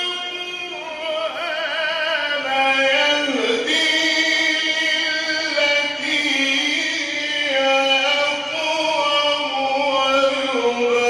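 Male Quran reciter's voice in a long melismatic tajwid passage: held, ornamented notes with vibrato that glide and step between pitches, heard through a public-address microphone.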